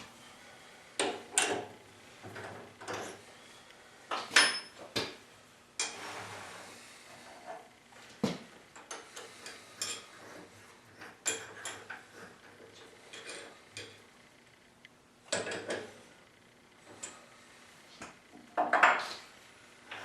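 Irregular clinks and knocks of steel tools and parts being handled at a metal lathe, over a faint steady hum.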